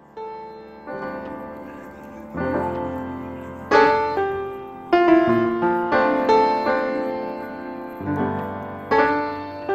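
Background piano music: a slow, gentle tune of single notes and chords, each struck and left to fade.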